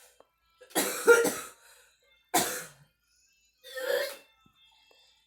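A girl coughing: three harsh coughs about a second and a half apart, the first a quick double cough.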